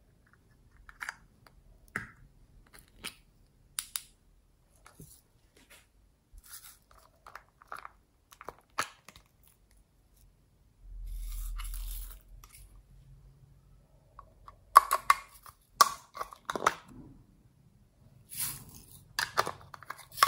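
Small plastic cases being handled and clicked open, with a scatter of sharp plastic clicks and crinkly rustling. A short steady rustle comes about eleven seconds in, and the clicks come louder and closer together in the last few seconds.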